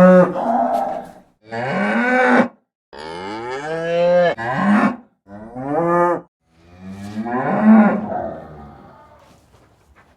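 Cows mooing in a series of about six separate calls, each a second or so long with a pitch that bends up and down, and the last call longer and fading out.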